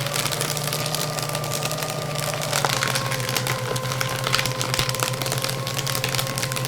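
Electric paper shredder running, its motor humming steadily while the cutters work through paper with a dense crackling. The hum dips slightly in pitch about two and a half seconds in.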